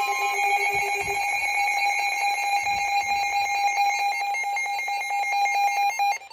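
Emergency Alert System alarm tone: a loud, harsh, steady tone with a fast flutter, cutting off abruptly near the end.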